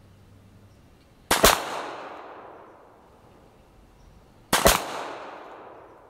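Two pistol shots about three seconds apart, each a sharp crack followed by a long echo dying away over about a second and a half.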